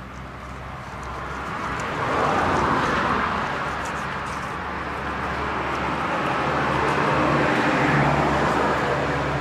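A motor vehicle passing, its engine hum and road noise swelling up and fading, with a second swell near the end.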